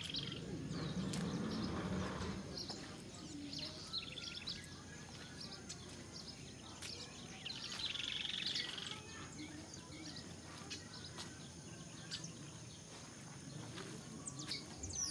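Small birds chirping and trilling now and then over a quiet outdoor background, with a denser run of trills about eight seconds in. A low muffled noise stands out in the first couple of seconds.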